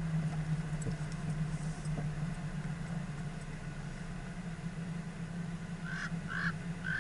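Vehicle engine idling with a steady low hum, heard from inside the stationary vehicle. About six seconds in come four short, high chirps.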